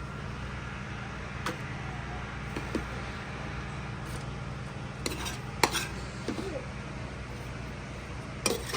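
Metal spoon scraping and clinking against a cooking pot and a metal tray as cooked curry is scooped out and packed into the tray. A few sharp clinks come through, the loudest about five and a half seconds in, over a steady low hum.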